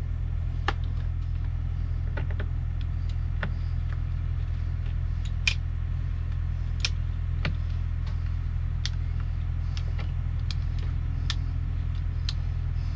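Scattered sharp clicks and taps of a hand driver working the bolts that hold a truck's blower motor in place, about a dozen spread irregularly. Under them runs a steady low engine hum.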